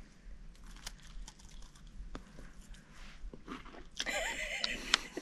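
Close-up crunching and chewing of flavoured snow eaten as shave ice, a run of small, sharp crackles. A louder, rougher noise lasts about a second near the end.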